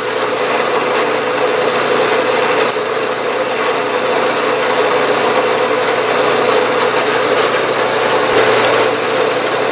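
Milling machine spindle running with a steady hum while a center drill spots a starter hole in an aluminum plate.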